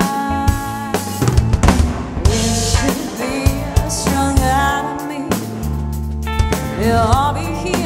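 Live band music: a drum kit with bass drum and snare under electric guitar and bass, with a woman's lead vocal coming in near the end.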